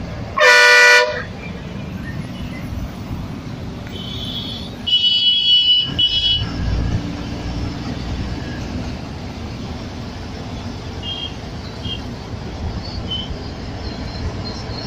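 Vehicle horns honking in city traffic, heard from inside a moving bus over the steady rumble of its engine and the road: a loud, short blast about half a second in, then a higher-pitched honk in two parts around four to six seconds in, and a few faint short beeps later.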